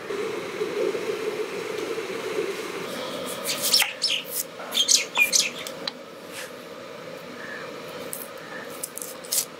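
Kitchen knife cutting through a whole onion on a wooden chopping board: a run of sharp, crisp cuts about three to six seconds in. A steady low noise runs underneath, louder in the first few seconds.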